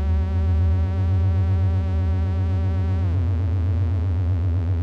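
Modular synthesizer drone: several oscillators mixed and cross-fed through a Doepfer A-138m matrix mixer with feedback, giving a crunchy tone with wavering overtones over a fast pulsing low end. About three seconds in, the upper part of the sound slides down in pitch.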